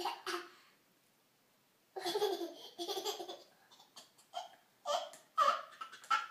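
Baby laughing: a short laugh right at the start, then after a pause of about a second and a half, a run of laughs that break into shorter and shorter bursts.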